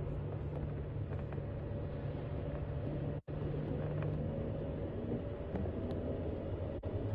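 Steady engine and road noise inside a moving road vehicle, a low hum under a hiss of tyres and wind, with a split-second dropout about three seconds in.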